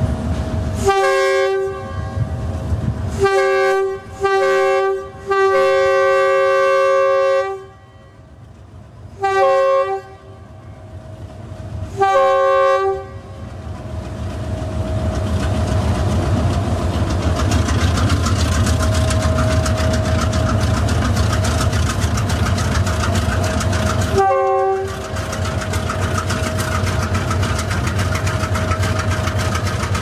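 Chinese diesel freight locomotive sounding its multi-tone horn in a run of blasts, one of them held for about two seconds, during the first 13 seconds. After that the engine's heavy running sound builds up and stays loud as the train passes, broken by one more short horn blast a little before the end.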